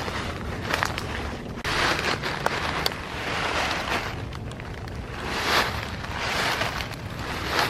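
Footsteps crunching and swishing through deep dry leaf litter, about one step a second, over a low rumble of wind on the microphone.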